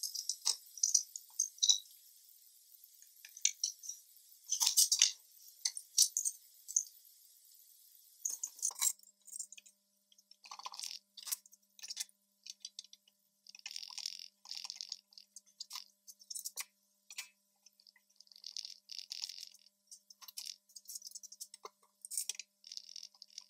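Clamps being set on boards on a wooden workbench: repeated clicking, ratcheting squeezes of one-handed trigger bar clamps, with sharp knocks and clinks of metal clamp bars being handled. A faint steady hum runs under it from about a third of the way in.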